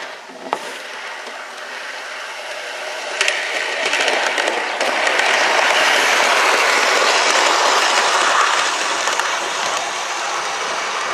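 Garden-scale model train running along outdoor track: a steady rolling clatter of wheels on rails that builds about three seconds in, is loudest as the locomotive passes close, then eases off.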